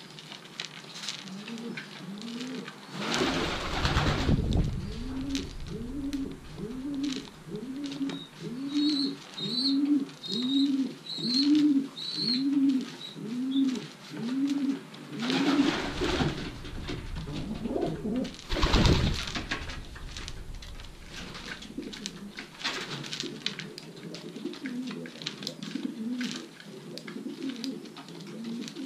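Racing pigeons cooing: a long run of evenly repeated low coos, each rising and falling, about one and a half a second, then softer scattered coos. Three louder rushes of noise break in, the loudest about two-thirds of the way through.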